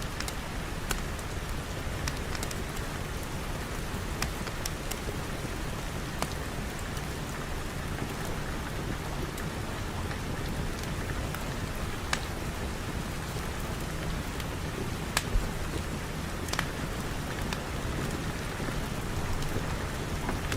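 Steady rain falling, with scattered sharp clicks at irregular moments.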